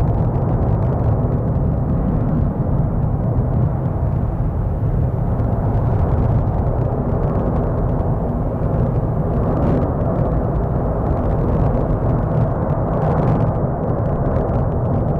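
Continuous low rumbling roar of the Cumbre Vieja volcano erupting, steady throughout with no separate blasts.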